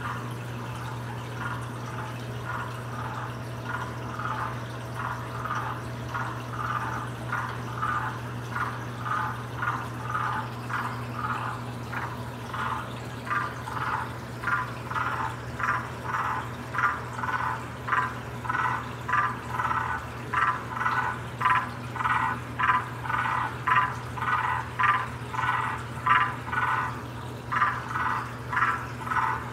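Male waxy monkey tree frog (Phyllomedusa sauvagii) giving its mating call: a long series of short calls, about two a second, growing louder from about ten seconds in. A steady low hum runs underneath.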